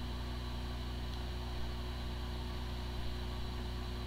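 Hard drive spinning steadily with an even hum and no clicking: a drive with corrupted firmware, which spins up normally but is not accessible by any computer.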